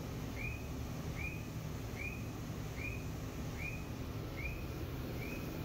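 Boiler flame failure alarm beeping: short high electronic chirps repeat evenly, a little more than one a second, over a steady low hum. The alarm sounds when the boiler is stopped, an error that is put down to carbon deposits on the main burner.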